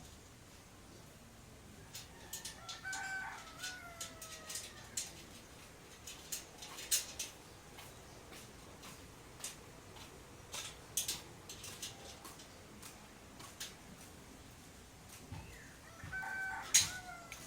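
A rooster crowing twice: once about two seconds in and again near the end, each crow a pitched call that falls away at its tail. Scattered sharp clicks and taps run between the crows, the loudest about seven seconds in.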